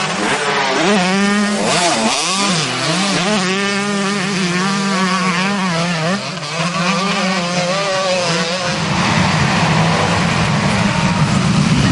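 Motocross bike engine revving up and down in quick swells as it climbs a sand hill. About nine seconds in it gives way to a dense, steady din of many motocross engines at full throttle as a pack leaves the start.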